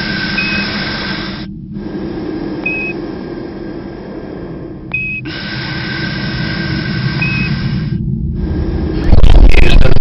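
Radio static sound effect in blocks that cut in and out, with a steady whistle and a short high beep every two to three seconds, as in a space-radio transmission. About nine seconds in a much louder rumble with crackles starts.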